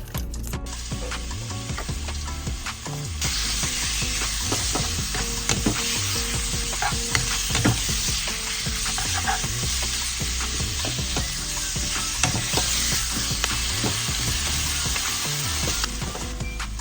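Spicy marinated pork for jeyuk-bokkeum stir-frying in a hot pan. The sizzle swells about three seconds in and eases off near the end, with scattered clicks of a utensil against the pan.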